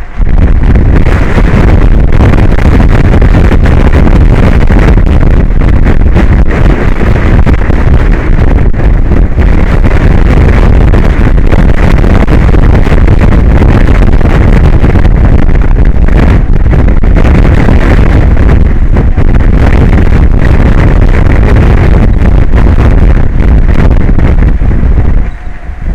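Strong wind buffeting the microphone: a loud, steady rumbling roar that drops off briefly near the end.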